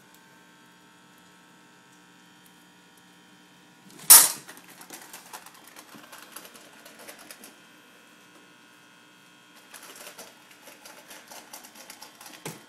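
Shiba inu eating dry kibble from a stainless steel bowl: a loud clank about four seconds in as it reaches the bowl, then rapid crunching and clicking of kibble against the metal, with a short pause midway.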